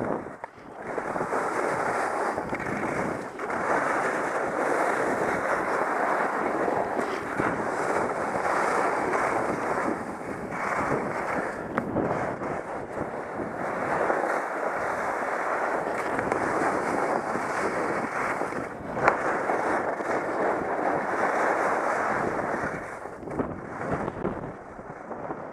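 Steady rush of wind over the microphone of a camera worn by a downhill skier, mixed with skis scraping over groomed snow. It eases and turns uneven near the end.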